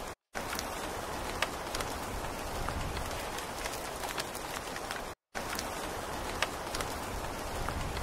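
Steady rain falling, with many single drops ticking sharply against the even hiss. The sound cuts out to silence for a split second twice, just after the start and about five seconds in.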